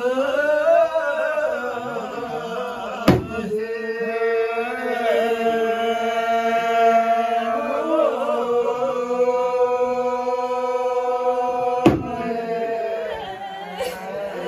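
Voices chanting a slow traditional kogyi dance song in long held notes, punctuated by single percussion strikes from a hand drum and cymbals: a loud strike about three seconds in, another near the end, and a fainter one just after it.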